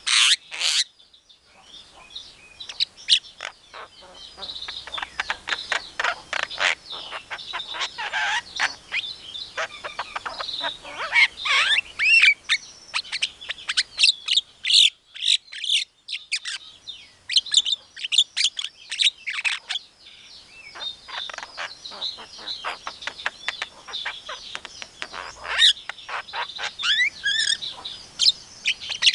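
Javan myna singing a rapid, varied stream of short chirps, whistles and gliding notes, with a couple of brief pauses.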